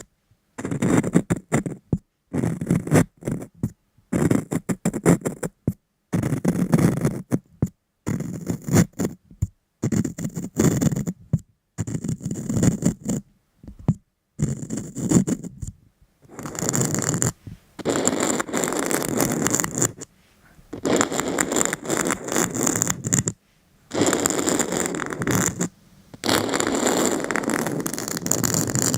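Scraping and scratching noise in bursts, each cut off abruptly into silence: short bursts in the first half, longer steady stretches of two to three seconds after about sixteen seconds.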